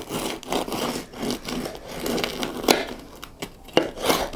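Bread knife sawing back and forth through a crusty loaf of bread, the hard crust crackling, with a few sharp cracks in the second half.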